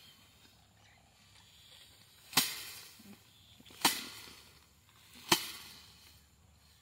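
A bundle of cut rice (paddy) stalks beaten by hand against a slatted threshing frame three times, sharp thwacks about a second and a half apart. Each blow knocks the grain off the stalks in manual threshing.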